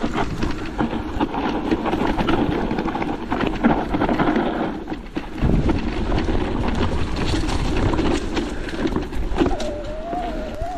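Electric mountain bike ridden over a rough trail: tyres crunching and knocking over stones and roots, the frame and parts rattling, with a constant low rumble. A wavering whine comes in near the end.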